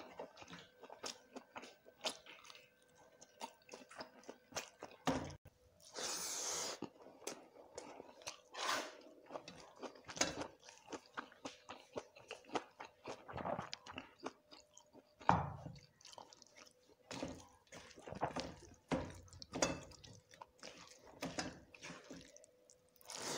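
Close-miked chewing of a mouthful of rice, dal and salted dry fish eaten by hand: irregular wet bites and smacks with short crunches scattered throughout.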